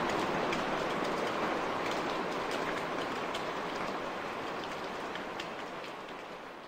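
Rain falling: a steady patter of many small drops, slowly fading out.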